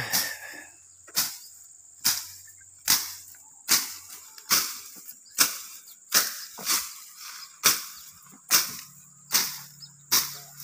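Tall grass being slashed by hand with a blade, in steady rhythmic strokes a little under one a second, about a dozen sharp cuts in all.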